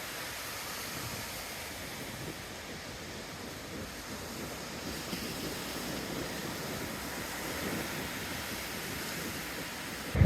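Ocean surf washing in, a steady rushing hiss that swells and eases. Right at the end a gust of wind buffets the microphone.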